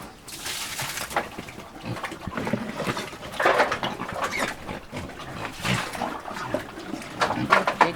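Pigs and piglets grunting and squealing at feeding time, in short irregular bursts.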